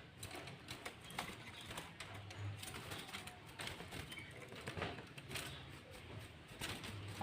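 Faint bird calls amid scattered clicks and rustling knocks, over a low hum.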